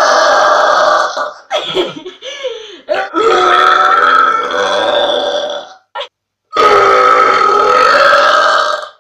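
A young woman's long, loud burps: three drawn-out burps, each lasting two to three seconds, with short pauses between them.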